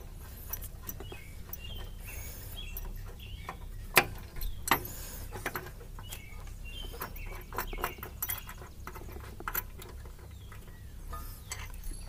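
Small metallic clicks and ticks of a nut being turned by hand along the threaded steel rod of a homemade mower-deck belt tensioner, loosening it; a sharper knock comes about four seconds in.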